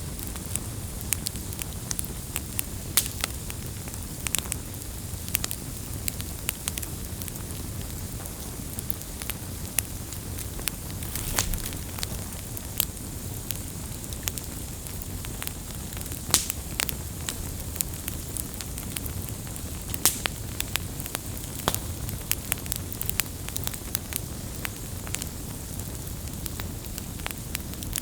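Wood fire burning, with irregular sharp crackles and pops over a steady low rumble of the flames.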